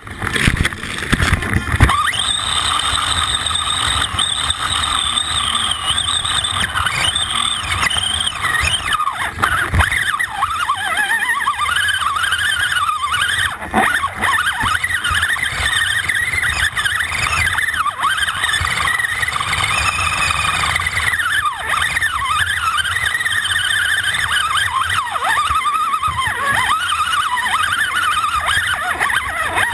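Electric motor and gear whine of an Axial AX10 radio-controlled rock crawler, rising and falling in pitch with the throttle as it crawls over rocks, with a few sharp knocks of the chassis and tyres against rock.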